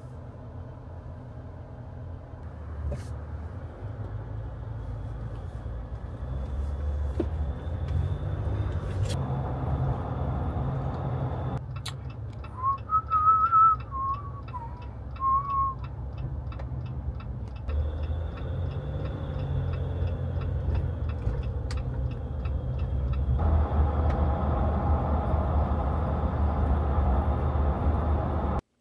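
Road and engine rumble inside a moving car, a steady low drone that grows louder over the stretch. About twelve seconds in, a man whistles a short tune for a few seconds over faint, regular ticking.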